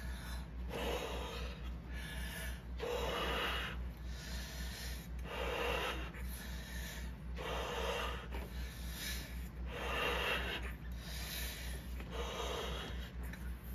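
A person blowing up a 17-inch latex balloon by mouth: about six deep, noisy breaths, each under a second, roughly two seconds apart.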